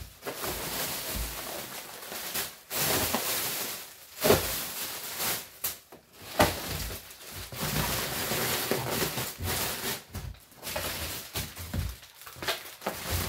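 Plastic bubble wrap and inflated air-pillow packing rustling and crinkling as it is handled in a cardboard box. The rustling comes in uneven spells with short pauses, and the sharpest crackles fall about four seconds and six and a half seconds in.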